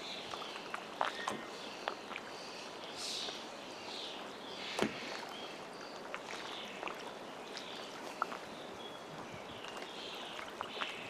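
Small waves lapping and splashing against a moored boat in shallow lake water, with scattered little clicks and splashes. Birds call now and then in the background.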